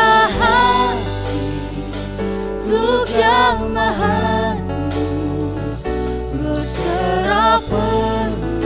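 Music: a worship team of several singers performing an Indonesian Christian praise song over a band with bass, electric guitar, drums and keyboard.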